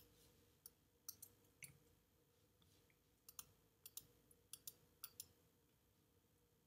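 Faint computer mouse button clicks: about a dozen short sharp clicks, many in quick press-and-release pairs, in a near-silent room, stopping about a second before the end.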